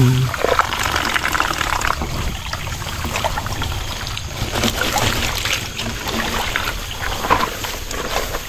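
Rainwater runoff trickling and splashing as it flows down a small channel, with irregular little splashes throughout.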